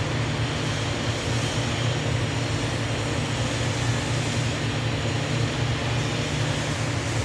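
TIG welding on 6-inch pipe: a steady low hum with an even hiss that does not change.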